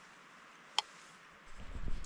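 A single sharp click of a spoon against a metal cook mug, then low rumbling handling noise from about a second and a half in.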